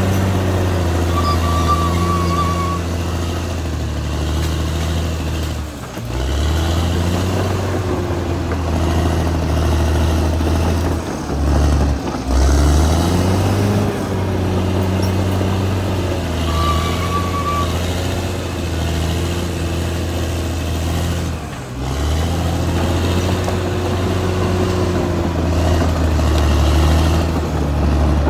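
Caterpillar D6R XL bulldozer's diesel engine running hard, its note dipping sharply and picking back up three times.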